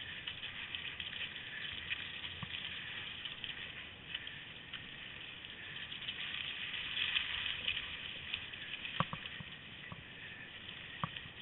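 Steady crackling hiss of skis gliding over snow while being pulled, with a few sharp clicks or knocks, the loudest about nine seconds in.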